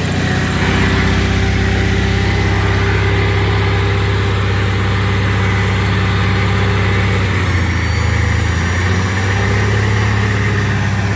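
The engine of a homemade mini crane running steadily at raised revs, with a change in its note about seven seconds in.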